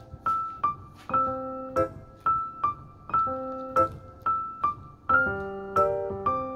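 Background music: a light piano tune, single notes struck at an easy pace over lower accompanying notes.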